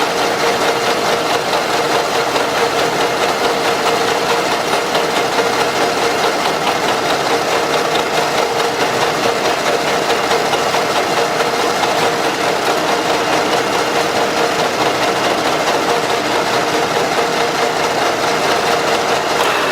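A metalworking machine tool running steadily with an even, fast-pulsing hum, cutting metal from a part to take about half a millimetre off its surface.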